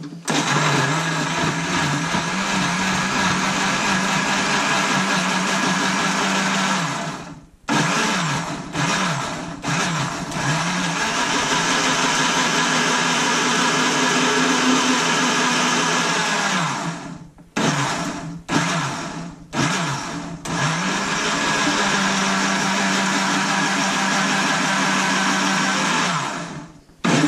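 Electric countertop jug blender blending a shake of milk, banana, raw eggs, peanut butter, granola and strawberries. It runs in three long bursts of several seconds each, with a few short pulses in between, its motor pitch dipping and rising as the load shifts.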